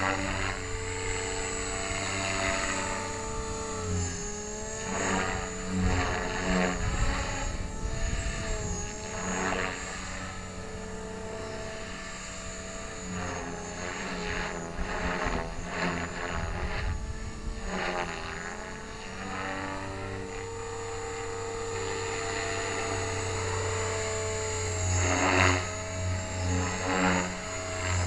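Align T-Rex 500 ESP electric RC helicopter in flight: a steady whine from its motor and main rotor that dips and rises in pitch as it manoeuvres. Louder rotor whooshes come in stretches around the middle and near the end.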